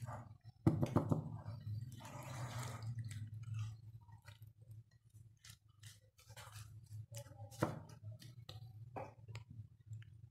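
Silicone spatula stirring diced guava in a glass bowl: wet squishing of the fruit pieces and irregular light clicks and knocks of the spatula against the glass, over a steady low hum.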